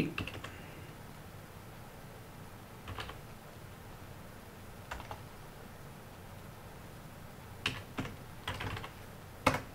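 Computer keyboard keystrokes: a few single key presses spaced seconds apart, then a quicker run of several keystrokes near the end.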